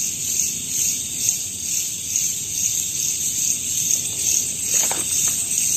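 Steady, high-pitched chorus of night insects with a faint regular pulse, over a low background hiss.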